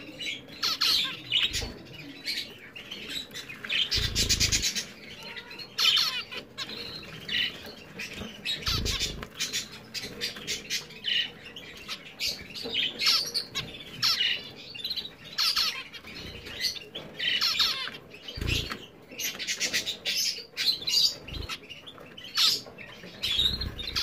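A group of zebra finches calling, many short nasal beeps and chatter overlapping, with occasional bursts of wing fluttering as they bathe in shallow water dishes.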